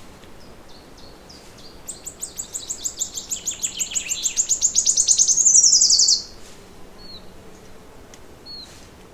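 A songbird singing a long rapid trill of high notes that grows louder and faster, then stops abruptly about six seconds in. A few faint short chirps from other birds come before and after.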